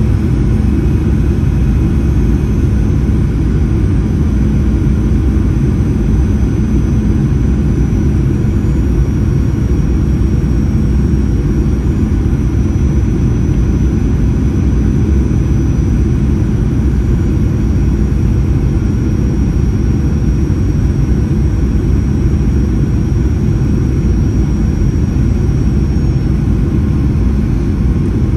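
Steady cabin noise inside a Boeing 737-800 in flight: a loud, unbroken low rumble of airflow and engine drone from its CFM56 jet engines, with a faint thin high whine through most of it.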